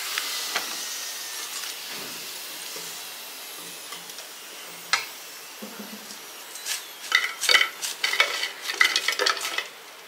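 Food sizzling in a pan, the hiss fading over the first few seconds, then a spatula stirring and scraping against the pan in a quick run of clatters from about seven seconds in.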